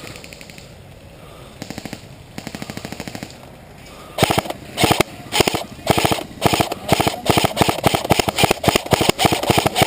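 Airsoft electric rifles firing full-auto: two short, quieter bursts of rapid clicks about two seconds in, then, from about four seconds in, loud short bursts close by, repeating about twice a second.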